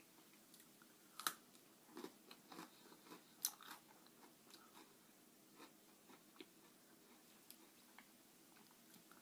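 Faint crunching and chewing of a key lime pie Oreo sandwich cookie, eaten in small bites. The sharpest crunches come about a second in and again about three and a half seconds in, with softer, sparser chewing clicks after that.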